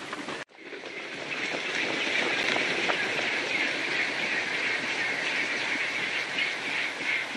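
Outdoor ambience: a dense, steady, high-pitched chirring chorus that flickers continuously. It comes in after a brief sudden dropout about half a second in.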